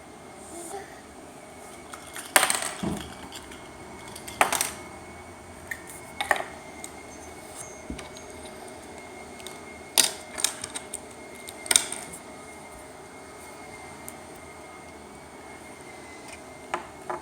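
Scattered clicks and knocks of small plastic pieces being handled: a Kinder Surprise egg's capsule and toy, about eight sharp taps spread out with pauses between them.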